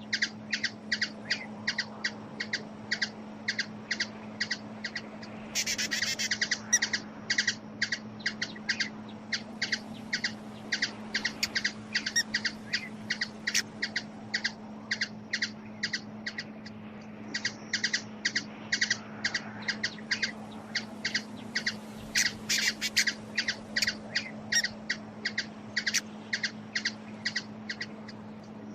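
Hummingbird chipping: a quick steady run of short, sharp, high chips, about four a second, growing busier twice along the way. A steady low hum runs underneath.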